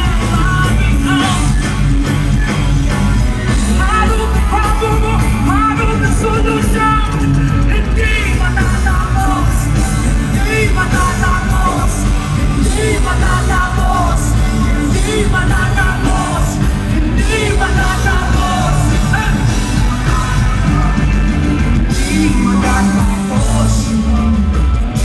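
Live rock band playing loud, a lead vocalist singing into a microphone over electric guitars, bass and drums, heard through the concert loudspeakers from within the crowd.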